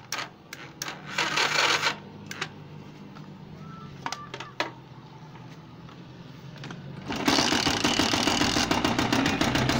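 Air-cooled single-cylinder motorcycle engine: a few clicks over a low steady hum, then about seven seconds in it gets much louder with a fast, hard, rapid knocking. This is the heavy internal knock in the engine, with the cause still to be found by stripping it down.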